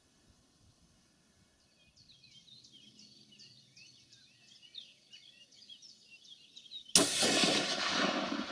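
Small birds chirping and singing, then about seven seconds in a single rifle shot goes off, its report echoing away over a couple of seconds.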